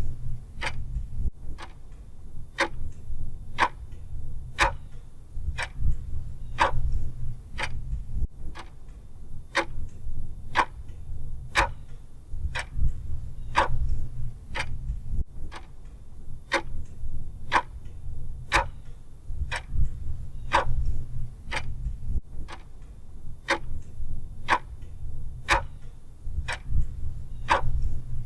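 A clock ticking steadily, sharp evenly paced ticks somewhat under two a second, over a low hum.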